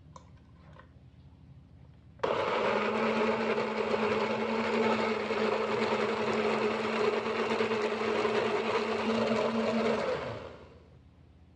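Miyako electric blender switched on suddenly, its motor running steadily at full speed for about eight seconds as it grinds red chillies into a paste, then switched off and winding down over about a second.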